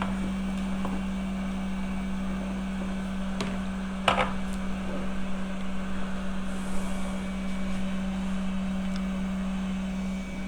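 Hot air rework gun blowing with a steady hum, cutting off near the end. A sharp click about four seconds in.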